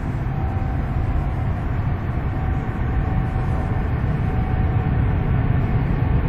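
Jet engines of a Boeing 777 airliner: a steady low roar with a faint whine, slowly growing louder.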